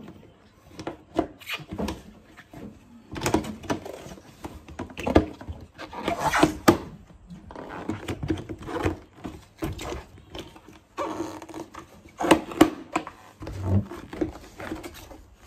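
Hard plastic drawer and cabinet parts knocking, scraping and clicking against each other as a drawer is handled and fitted into a plastic drawer cabinet. The sounds come in irregular clusters, with a few louder knocks about five, six and a half, and twelve and a half seconds in.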